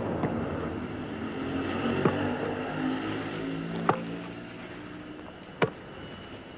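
A football kicked four times, each kick a short sharp thud, the last two the loudest. Under the kicks runs a steady vehicle rumble that fades a little after the third kick.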